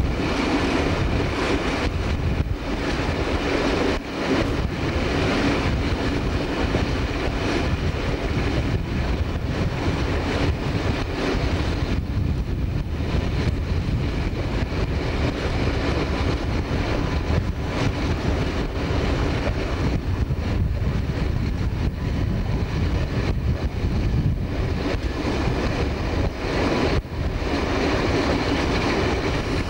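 DE II diesel multiple unit running at steady speed: a continuous rumble of engine and wheels on rail, with wind on the microphone and a few sharp clicks as the wheels pass over rail joints.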